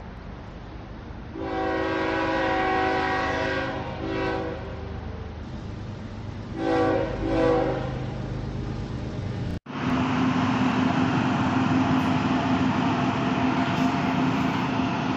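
A train horn sounds twice, a long chord of several tones and then a shorter one. After an abrupt cut, a WAG-9 electric freight locomotive hauling covered wagons runs past, a steady rumble with a constant hum.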